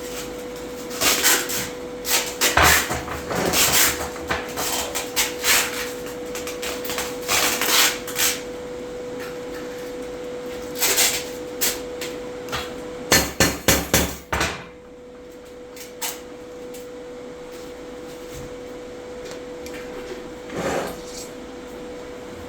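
Metal being struck and handled in a metalworking shop: scattered knocks and clanks, then a quick run of about seven hammer strikes about 13 seconds in, over a steady hum.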